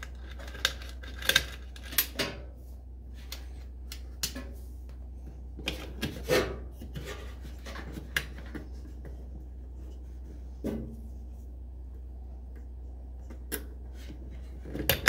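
Hands handling an electric range cord's green ground wire and ring terminal at the range's metal terminal block: scattered small clicks and rubbing of wire and metal, busiest in the first few seconds, with a dull knock near the middle.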